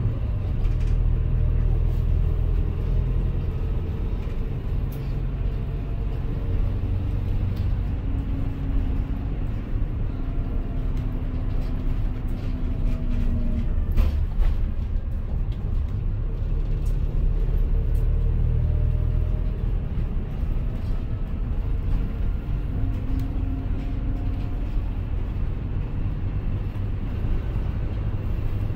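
Inside a moving bus: steady low engine and road rumble, with a sharp knock about fourteen seconds in.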